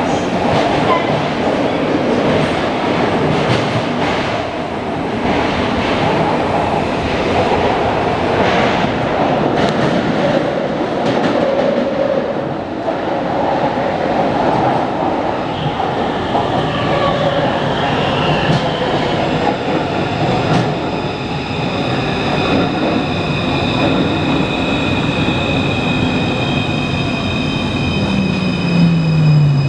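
Taipei Metro 341-type train running on the track, with steady rumble and scattered wheel clicks. From about two-thirds of the way in, several steady high whining tones from the traction inverter and motors join in, and near the end a low motor tone falls in pitch. The uploader says this car's inverter seems to make an abnormal noise.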